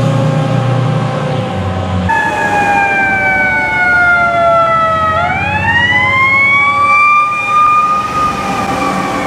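Fire engine sirens wailing. After a cut about two seconds in, a second fire engine's siren falls slowly in pitch for about three seconds, then sweeps back up and holds high as the truck passes close.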